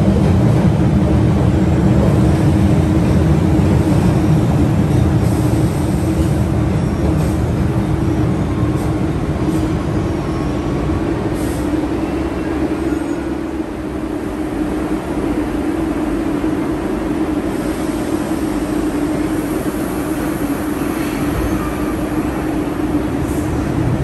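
MBTA Red Line subway train: a steady hum over a heavy low rumble. The rumble eases in the middle and builds again near the end.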